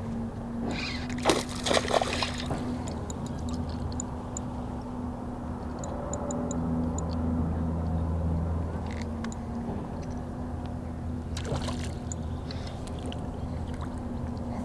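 A hooked bass splashing at the surface as it is reeled in to the boat on a spinning rod, with bursts of splashing about a second in and again near the end, over a steady low hum.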